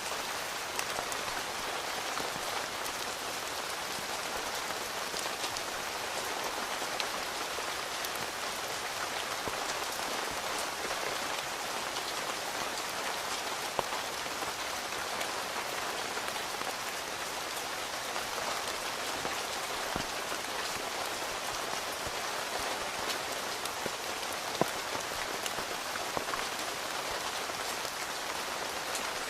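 Steady rain falling on a tent, heard from inside, with scattered louder single drops striking now and then.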